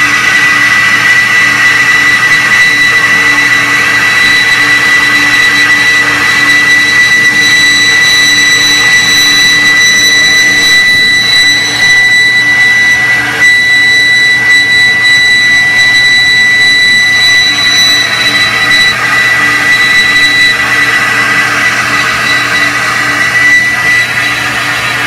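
Flow bench running, its motors drawing air through a Harley-Davidson M8 cylinder head's port during a flow test: a loud, steady rush of air with a steady high whine.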